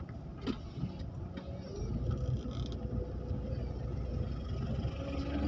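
Car engine and road noise heard from inside a slowly moving car, the engine note rising a little and getting louder about two seconds in, with a light click about half a second in.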